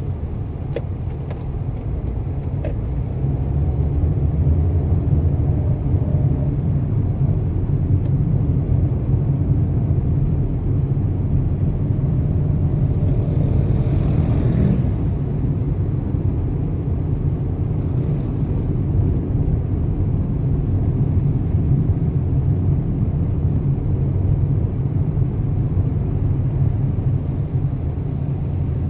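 Car driving on city roads: a steady low rumble of engine and road noise, with a few faint clicks in the first seconds and a brief swell of noise about halfway through.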